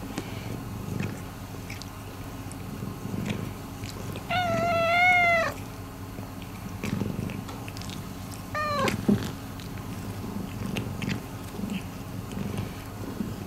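Long-haired calico cat purring steadily, with two meows: a longer one about four seconds in and a short one falling in pitch near nine seconds, plus small clicks from licking as it grooms its paw.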